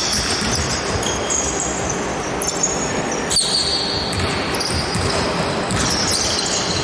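Basketball game sounds on an indoor court: sneakers squeaking sharply on the floor many times over, with the ball bouncing and a steady hall din underneath.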